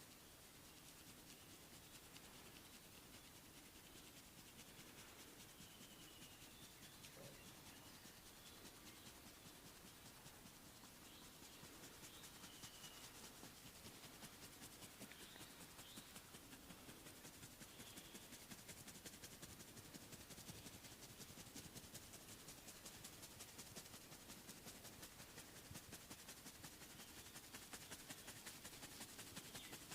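Faint rubbing and scratching of hands on hair and skin during a massage, becoming slightly louder and more regular about halfway through.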